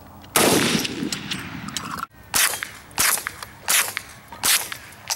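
Gunshots: a loud shot about half a second in with a long fading echo, then four more shots spaced well under a second apart, with fainter shots from other shooters on the range between them.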